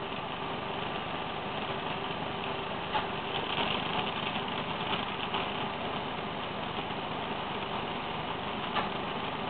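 Glassblowing bench torch flame burning with a steady rushing noise.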